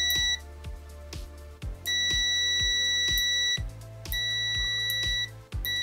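Multimeter continuity-check beeper sounding a steady high tone in long beeps of one to nearly two seconds, four in all, as tester leads are clipped across a switch's pins: each beep means the switch contacts conduct. Background music runs underneath.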